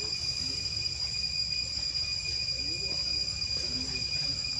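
Insects droning steadily at one high, even pitch over a low background rumble.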